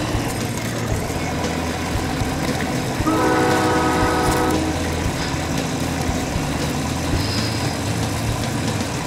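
Recorded semi-truck engine sound played through an RC truck's onboard sound module, running steadily at low revs, with one air-horn blast of about a second and a half starting about three seconds in.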